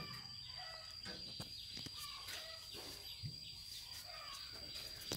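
Faint clucking of chickens in short calls scattered throughout, over a steady high-pitched whine.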